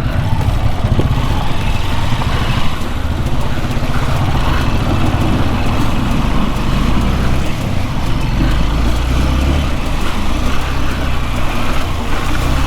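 Hero XPulse 200's single-cylinder engine running while the motorcycle is ridden, its pitch shifting with the throttle, over a steady rush of wind and riding noise.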